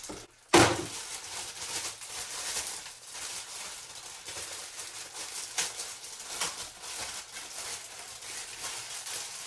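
Packaging rustling and crackling as a blow dryer brush is unboxed and handled, with a sharp knock about half a second in and small clicks here and there.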